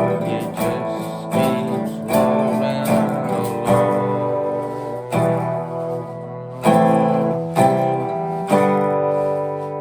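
Recorded music: acoustic guitar strumming chords, with a strong strum about once a second. Near the end a last chord is left ringing and fading.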